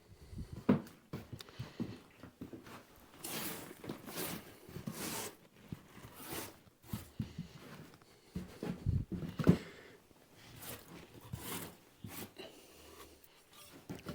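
Workshop handling sounds: irregular knocks and scrapes, with two louder knocks about a second in and about two-thirds of the way through.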